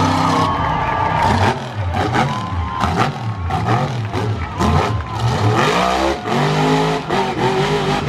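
Monster truck engine revving hard, its pitch climbing and falling again and again about once a second, with scattered sharp cracks.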